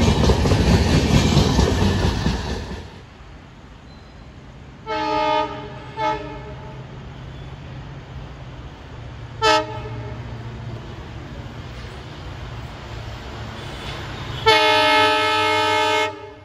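Red and grey Indian Railways LHB passenger coaches rush past, their wheels clattering over the rail joints, until the sound cuts off after about three seconds. Then an approaching locomotive sounds its multi-tone horn: two short blasts about five and six seconds in, a brief toot near ten seconds, and a long blast of about one and a half seconds near the end.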